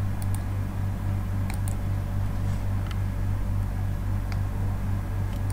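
Steady low hum of background recording noise, with a few faint short clicks.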